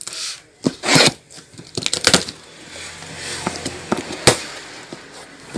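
A ceiling fan's cardboard box being opened by hand: irregular rustling and scraping of cardboard and packing, with sharp clicks and knocks, the loudest bursts about one and two seconds in.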